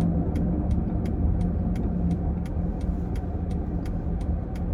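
Car engine running steadily, heard from inside the cabin, with a faint regular ticking about three times a second.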